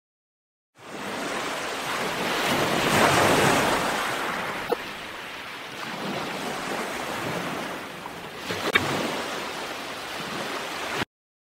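Ocean surf washing over sand: a wave swells up about two seconds in and ebbs, followed by a weaker second wash, with two faint clicks. It starts about a second in and cuts off abruptly near the end.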